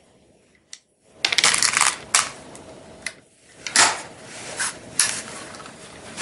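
Metallic clicks and clinks of a break-action 20-gauge shotgun being reloaded, with the steel .22LR cartridge adapter and a .22 round handled in the open breech. A quick run of clinks comes after about a second of quiet, followed by single clicks spaced through the rest, one of them the action closing.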